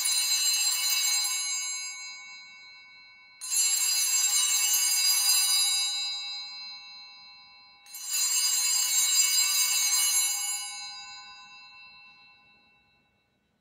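Altar bell rung three times, about four and a half seconds apart, each ring starting sharply and fading away. It marks the elevation of the host just after the consecration of the bread.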